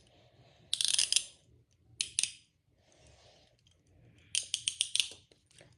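Metal chain handcuffs being ratcheted shut on a wrist: quick runs of sharp clicks as the pawl catches the teeth, in three separate bursts, with the last and longest near the end. The cuff is being tightened hard enough to pinch the wrist.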